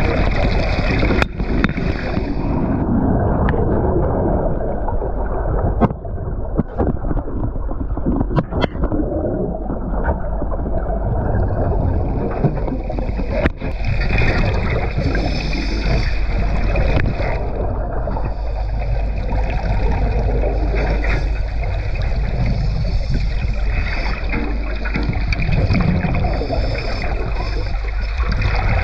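Underwater rush of turbulent seawater around a shark cage in rough sea, picked up by a GoPro camera underwater and heard muffled and steady. A few sharp knocks stand out about 1, 6, 8.5 and 13.5 seconds in.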